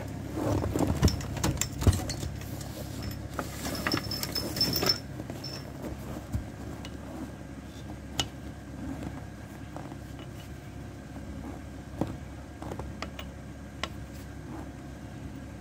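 Metal clinking and rattling of a socket wrench on a car's wheel lug nuts as the front wheel is bolted back on. The clinks come thick for the first five seconds, then thin out to single clicks every second or two, over a faint steady hum.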